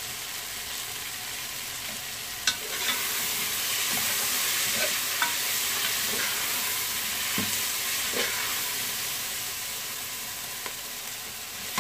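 Sliced vegetables sizzling as they fry in an aluminium pot, stirred with a slotted steel spoon that scrapes and taps against the pot, with one sharp clank about two and a half seconds in. The sizzle grows louder a few seconds in.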